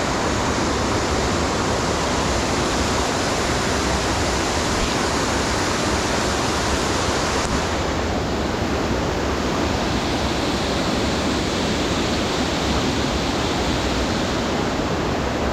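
Waterfall rushing steadily: water dropping about 10 to 15 feet and spreading over rocks below in a constant loud roar of white water.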